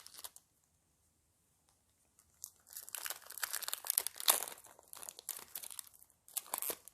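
Foil booster-pack wrapper crinkling and rustling as it is handled and torn open. It starts about two seconds in and lasts around three seconds, with another short burst near the end.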